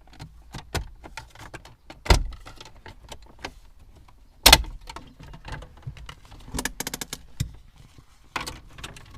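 Plastic interior trim of a Toyota Auris centre console being pried at and handled: scattered clicks and knocks. There are two louder knocks, about two and four and a half seconds in, and a quick run of clicks around seven seconds.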